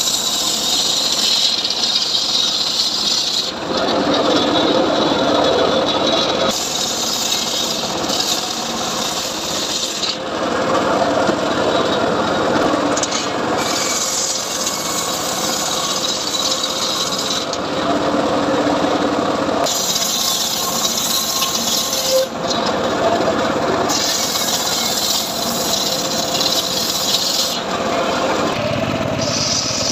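Homemade sawmill saw cutting through jowar wood, a continuous loud rasp over a steady running tone. The cut changes character every few seconds, swinging between a brighter hiss and a lower grinding.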